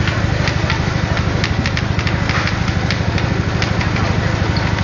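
Engine running steadily with a fast, even beat, most likely the fire engine's motor driving the hose pump, with scattered sharp cracks over it.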